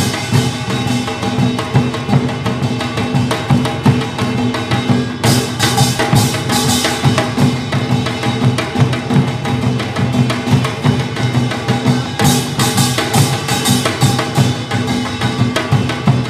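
Korean traditional percussion ensemble playing: janggu hourglass drum and buk barrel drums beating a fast, dense rhythm over a steady held tone. The sound grows brighter and busier about five seconds in and again about twelve seconds in.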